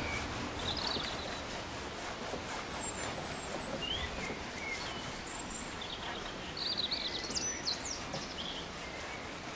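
Wild birds singing over steady outdoor background noise: scattered short chirps and whistles, with a quick run of song about seven seconds in.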